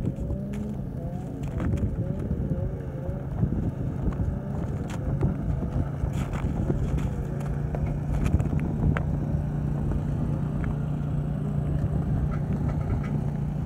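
An engine running, its pitch wavering in the first few seconds and then holding a steady hum, with wind buffeting the microphone.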